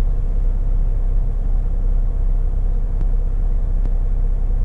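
Mack semi-truck's diesel engine idling while the truck stands at a traffic light, heard from inside the cab: a steady low rumble.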